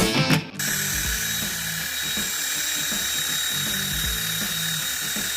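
Music cuts off about half a second in, then a small battery-powered toy motor runs steadily with a thin high whine.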